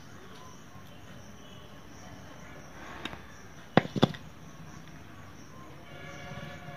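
Pliers and stiff wire clicking as wire rings are bent: a small click about three seconds in, then two sharp clicks in quick succession a second later. Steady insect chirring runs underneath.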